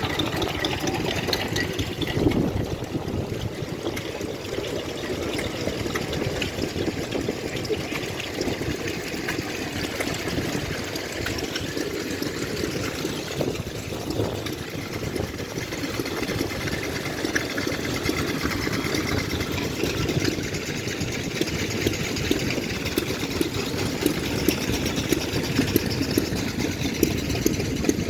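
Engines running steadily, a dense mechanical chugging. Short knocks come about once a second near the end.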